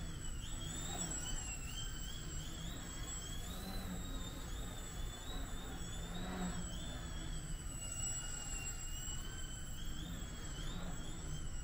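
Small electric motor and propeller of a foam GeeBee control-line model airplane in flight, whining with a pitch that wavers up and down as the motor speed shifts.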